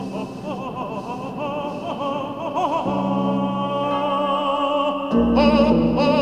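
Background music: operatic singing with strong vibrato over sustained low notes, growing louder about five seconds in.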